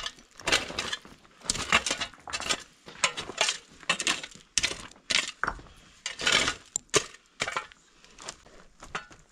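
Shovel scraping and digging into stony dirt, with gravel clinking against the blade, about two strokes a second, thinning out near the end.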